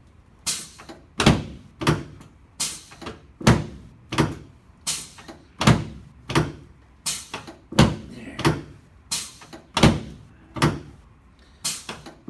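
A steady series of sharp thumps, about three every two seconds, during a chiropractic adjustment of the left sacroiliac joint.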